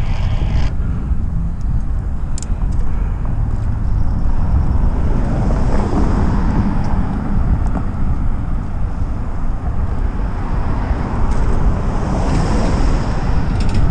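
Wind rushing over the microphone of a camera on a moving rider, a steady low rumble. A passing car swells through it about six seconds in.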